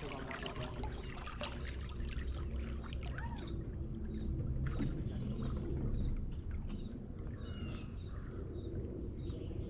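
Water lapping and trickling against the hull of a bass boat, over a steady low rumble. From about four seconds in, faint short high chirps repeat about twice a second, with a longer chirping call near the end.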